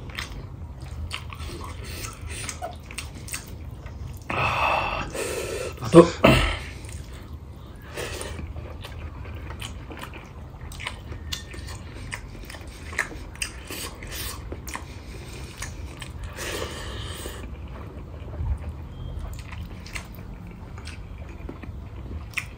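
Close-up chewing and mouth noises of a person eating rice and pork curry by hand, with many small wet clicks. There are a few louder, longer mouth noises about four to six seconds in and again near seventeen seconds.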